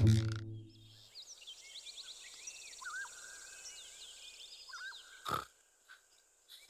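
Birds chirping and whistling faintly as a cartoon morning ambience. It is preceded by a short, low, grunt-like voice sound at the very start, and a brief low thump comes about five seconds in.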